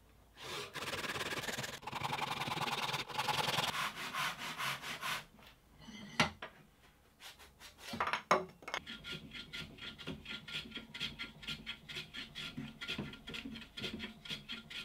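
A Japanese pull saw cuts through a small mahogany block in steady, continuous strokes for the first few seconds, followed by a few wooden knocks. After that, a small hand plane takes short, quick strokes across the end of a mahogany piece, about three or four a second, with a faint ringing through them.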